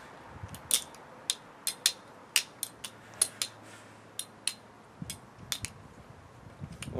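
Balisong-style bottle opener (BBbarfly Pro) being flipped by hand: a string of sharp, irregular clicks as its handles swing round the pivot and knock closed and open, about two or three a second.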